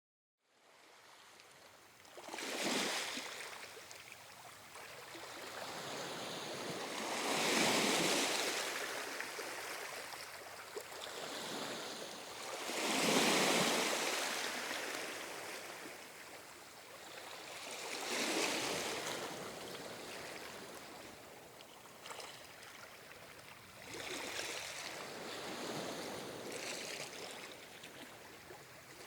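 Calm ocean waves washing ashore: a surge of surf about every five seconds, each swelling to a loud hiss and falling away again. The sound fades in from silence at the start.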